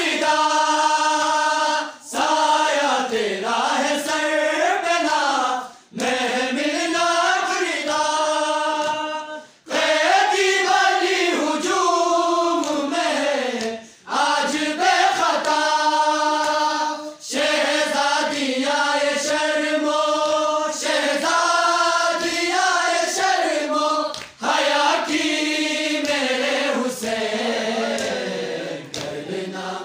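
A group of young men's voices singing a noha, a Shia lament, in unison and without instruments, in phrases a few seconds long with brief pauses for breath between them.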